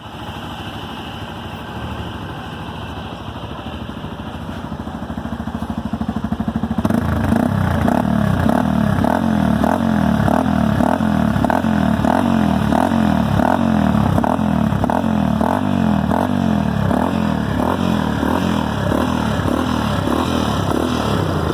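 Yamaha Ténéré motorcycle running through an aftermarket full exhaust system with twin tips. It runs steadily and slowly gets louder at first. About seven seconds in it turns louder, with an even pulsing about twice a second that holds to the end.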